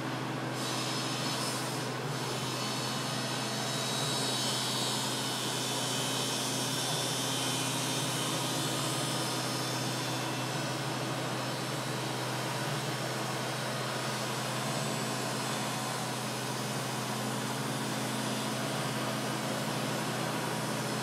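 A steady low hum with an even rushing noise over it, unchanging in level.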